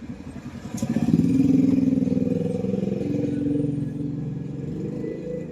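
A motor vehicle's engine passing close through a road intersection, getting louder to a peak about a second in, then fading slowly as it moves away, over a background of traffic.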